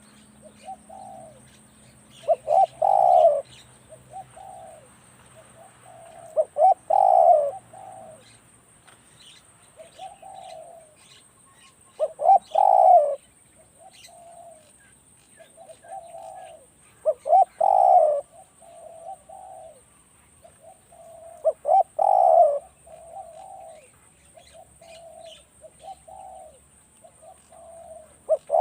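Spotted doves cooing: a loud coo phrase every five seconds or so, about six in all, with fainter coos in between.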